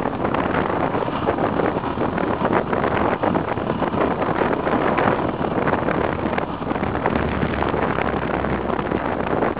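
Yamaha XT660R's single-cylinder four-stroke engine running steadily at road speed of about 90 km/h, largely buried under heavy wind noise buffeting the bike-mounted camera's microphone.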